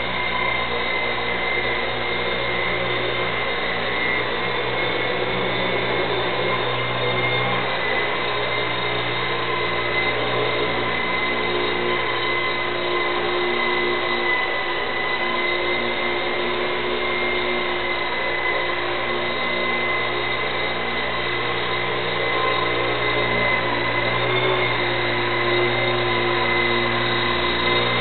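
ESky Lama coaxial micro RC helicopter flying, its small electric motors and rotors giving a steady whine and hum. The pitch wavers briefly a couple of times, and it grows a little louder near the end as it comes close.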